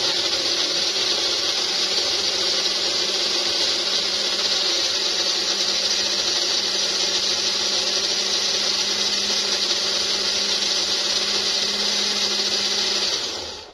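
Personal push-down blender running steadily at full speed, its motor whining as it blends a batter, then cutting off near the end.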